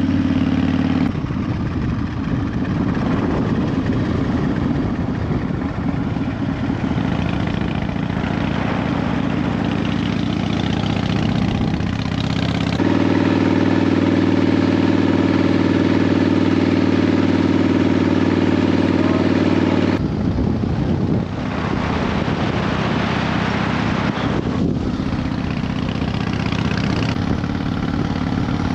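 Harley-Davidson Fat Bob's V-twin engine running as the motorcycle is ridden. The engine note changes abruptly about a second in, again around the middle, and once more about two-thirds through.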